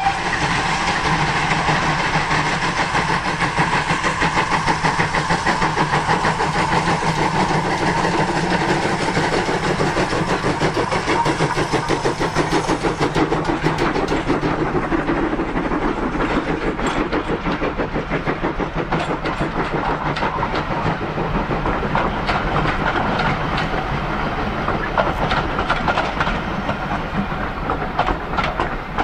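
GWR 64xx-class pannier tank steam locomotive chuffing with a rapid, even beat of exhaust as it approaches and passes hauling a train of coaches. Near the end, coach wheels clatter over the rail joints as the coaches go by.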